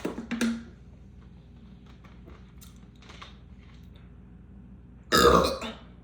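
A person burping: two short sounds right at the start, then one loud burp about five seconds in that lasts under a second.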